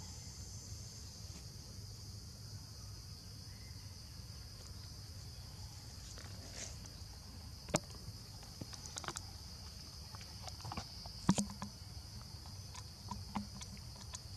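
Steady high-pitched drone of forest insects over a low rumble, with scattered sharp clicks and taps in the second half.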